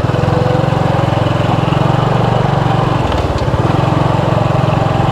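Motorbike engine running steadily while riding, its low note dipping briefly about three seconds in before it carries on.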